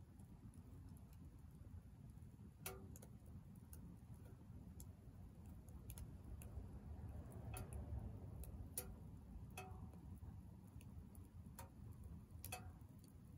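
Faint crackling of a wood fire in a small Soomloom MECA mini wood stove: about ten irregular sharp pops and ticks over a soft low rumble.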